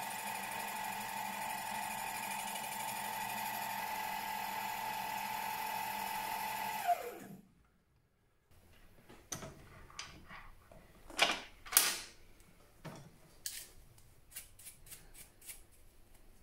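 Milling machine spindle running a slitting saw through an acetal (Delrin) bushing, a steady motor whine that falls in pitch and dies away about seven seconds in as the spindle stops. After a moment's silence come scattered light scrapes and clicks as a brush sweeps plastic chips off the saw and vise.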